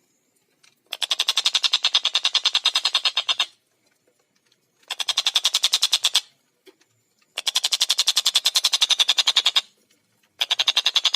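Tengkek buto kingfisher calling in rapid rattling cackles. It gives four strings of fast, evenly spaced 'kek' notes, each lasting one and a half to two and a half seconds, with short pauses between them.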